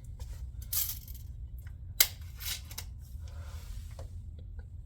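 Small hard objects being handled on a tabletop, with a few short rustles and light ticks and one sharp click about two seconds in, most likely small diecast model airplanes being picked up and set down.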